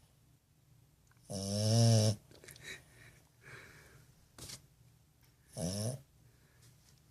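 French bulldog puppy snoring: a loud, drawn-out pitched snore about a second in and a shorter one about four seconds later, with softer breathing sounds between them.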